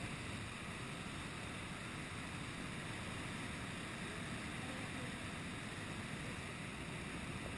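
Steady rush of the paraglider's airflow over the camera microphone, an even wind noise with no separate events.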